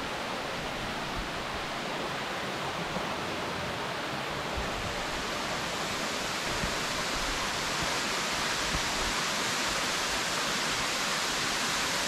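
Dimossari waterfall, a tall single cascade pouring down a rock gorge: a steady, dense rush of falling water that grows a little louder in the second half.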